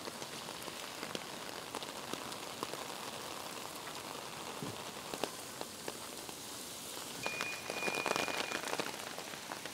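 Heavy typhoon rain pouring down, a steady hiss full of close drop ticks, growing denser about seven and a half seconds in.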